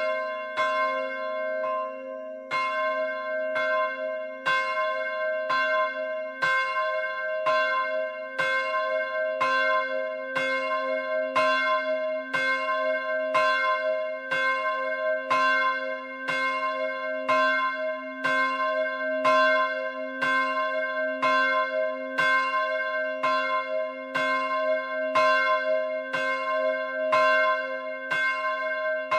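The smallest of three church bells, a 245 kg Rudolf Perner bronze bell cast in Passau in 2009 and tuned to c'', ringing alone as it swings. Its clapper strikes in a steady rhythm and the tone rings on between strokes.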